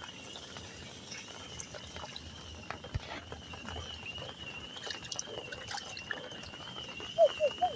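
Water trickling and splashing under a faint warbling car alarm siren that wavers steadily up and down. Near the end the alarm switches to a louder pattern of short repeated chirps.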